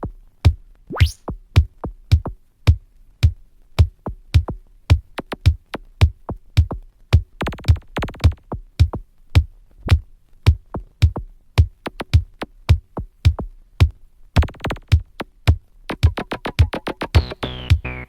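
Electronic music: a steady drum-machine beat of about two hits a second, with short fast rolls twice. Near the end a synthesizer line comes in with a falling sweep.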